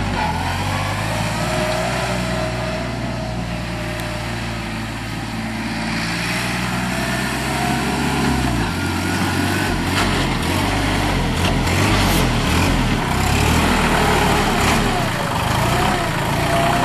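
Mahindra 3616 compact tractor's diesel engine running, its pitch changing about eight seconds in, with several clanks in the second half.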